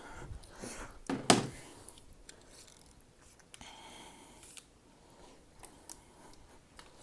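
Scattered small clicks and knocks, the loudest a little over a second in, against quiet room tone.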